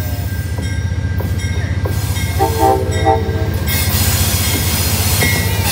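Amtrak GE Genesis diesel locomotive approaching with its engine running, giving two short horn toots about two and a half seconds in. The wheel and rail noise then swells as the train passes close.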